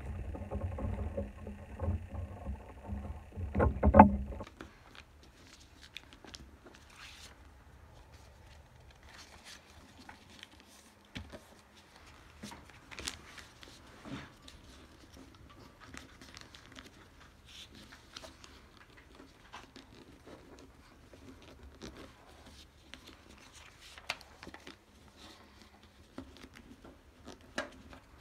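A low rumbling noise for about the first four seconds, loudest just before it cuts off. After that, faint rustling and short crisp crinkles of a sheet of paper being creased and folded by hand.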